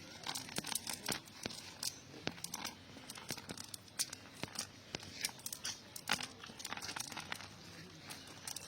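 Irregular close crackling and rustling, many sharp clicks at uneven spacing, like something being handled or crumpled.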